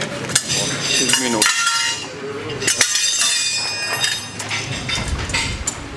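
Metal tire levers clinking and scraping against a spoked dirt-bike wheel rim and the steel tire-changer stand as a knobby tire is levered over the rim. The sound is a run of sharp metallic clinks with brief high ringing.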